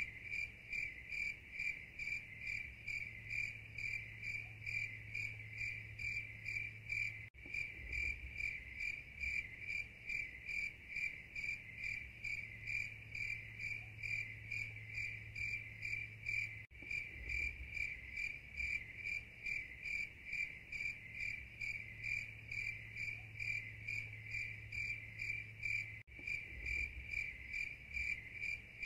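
Crickets chirping in a steady, rapid pulsing rhythm over a low hum. The pattern breaks off briefly and starts again about every nine seconds, as a looped recording does.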